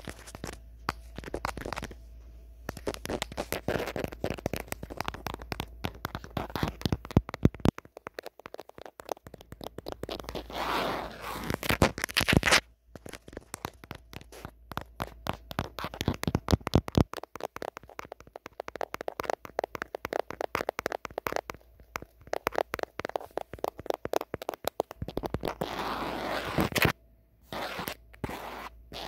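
Natural fingernails quickly tapping and scratching on the back of an old phone, with two brief pauses, one just after the middle and one near the end.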